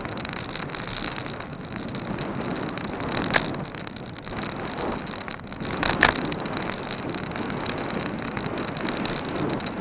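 Rolling cross bike with wind buffeting the action camera's microphone and steady road noise. Two sharp knocks come about three and a half and six seconds in.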